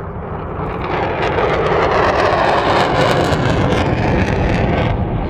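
Military jet aircraft making a low pass, their engine noise swelling about a second in and fading near the end, with faint crackling through it.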